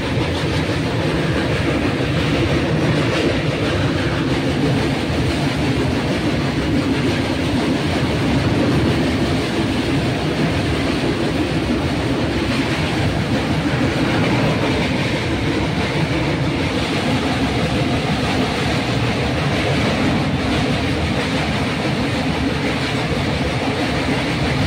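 Train running steadily over a river bridge: a continuous loud rumble and rattle of wheels on the rails, unbroken throughout.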